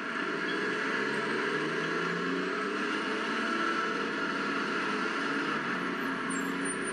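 Road traffic on a city street: cars and a van driving past, a steady mix of engine and tyre noise.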